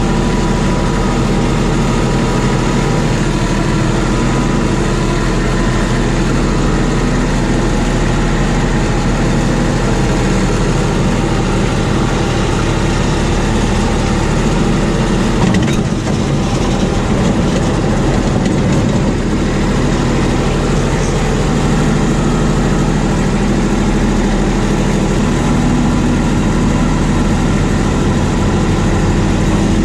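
Farm tractor engine running steadily at close range, a constant loud drone with a single faint click about halfway through.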